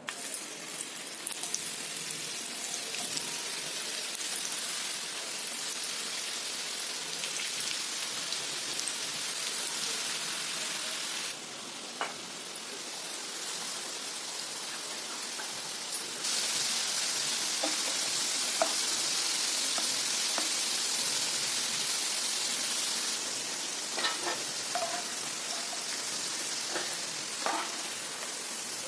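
Potato fries sizzling in hot oil, a steady hiss that grows louder about halfway through, with a few sharp clicks of a utensil stirring the pan.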